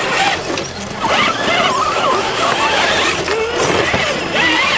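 Electric motor and geared drivetrain of an RC scale rock crawler (Traxxas TRX-4 Land Rover Defender) whining as it crawls over rocks. The pitch rises and falls repeatedly with the throttle.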